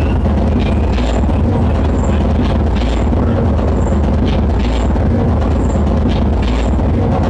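Loud techno played live over a club sound system: a heavy, steady bass with short, hi-hat-like ticks repeating in a regular rhythm.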